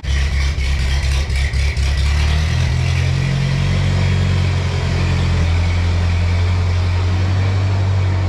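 Engine running close by, shortly after a cold start, with its pitch stepping up a little about three seconds in and settling back down a couple of seconds later. A few sharp knocks or rattles sound over it in the first two seconds.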